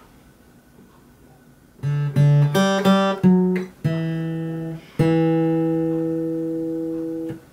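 Steel-string acoustic guitar playing a short single-note melody phrase, fretted with F-sharp in place of F: a run of quick plucked notes, then a held note that rings for over two seconds before it is damped.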